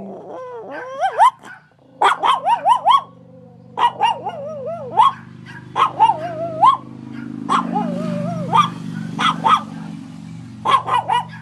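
Chihuahua howling in short, high yips that bend up and down in pitch, in about seven clusters of several yips each with brief pauses between.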